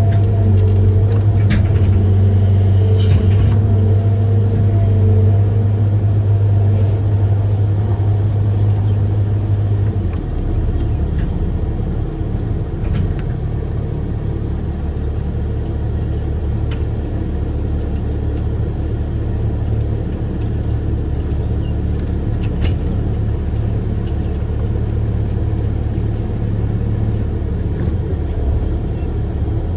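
Amphibious excavator's diesel engine running with a steady low drone. About ten seconds in the drone drops a little and turns rougher. A few faint knocks and clanks sound over it.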